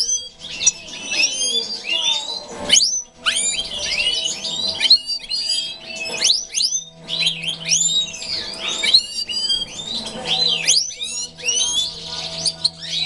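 A flock of European goldfinches singing and twittering together: a dense, overlapping stream of quick liquid chirps, trills and short pitch glides.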